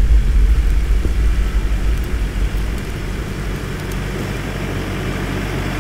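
A deep, steady rumble that eases off about halfway through.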